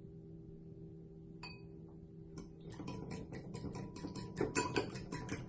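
Fork whisking a raw egg and lemon juice mixture in a bowl, its tines ticking rapidly against the bowl, several strokes a second. The whisking starts about halfway through, after a quiet stretch with a single click, and grows louder.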